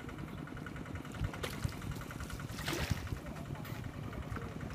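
Small boat engine idling steadily, with a brief splash of water near the middle.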